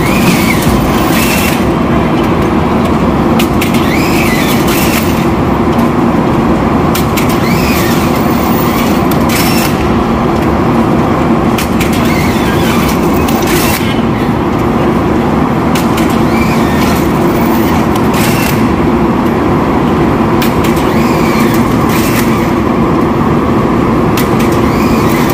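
Automatic arch strapping machine banding stacks of cartons: a steady loud machine drone with sharp clacks every one to few seconds as each plastic strap is fed, pulled tight and sealed.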